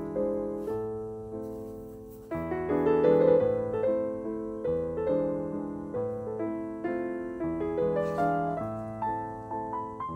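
Background piano music: a gentle melody of struck notes that ring and fade, with a short lull about two seconds in before the notes come back louder.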